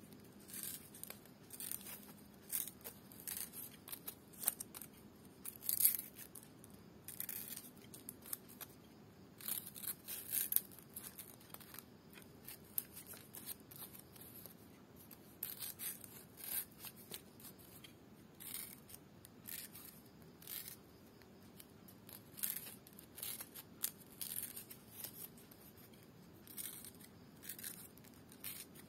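Small scissors snipping lontar palm leaf (ental), cutting a fringe pattern into a folded piece: many short, sharp snips in quick, irregular clusters.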